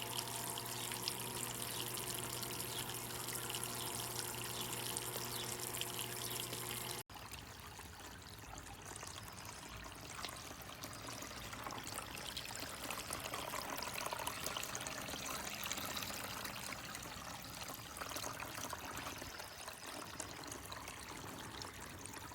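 Glenville cascading water fountain running: a steady trickling and splashing of falling water, with a low steady hum under the first part. The sound breaks off for an instant about seven seconds in and carries on a little quieter.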